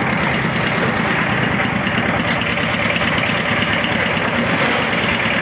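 Engine of a concrete mixing machine running steadily.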